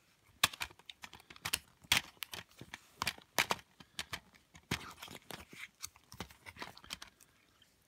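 Hands handling an open plastic Blu-ray case: irregular clicks and light knocks of the plastic, mixed with the rustle of a paper insert being leafed through.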